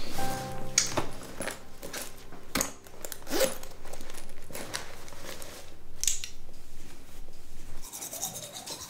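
Rummaging through a handbag: rustling, with small clicks and knocks as the things inside are moved about.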